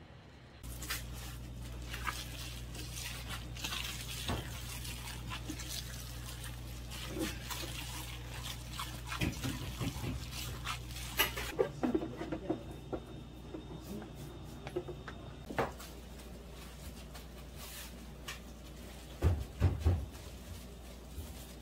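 A mashed potato and vegetable sandwich filling being stirred with a paddle, with wet crackling over a steady low hum. Near the end, a few thumps as gloved hands press the filling onto slices of bread.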